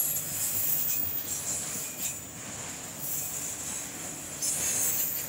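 Freight train autorack cars rolling past on the rails, wheels running over the track in a steady rumble and rattle. A thin, steady high whine runs underneath, and the high hiss swells at the start and again near the end.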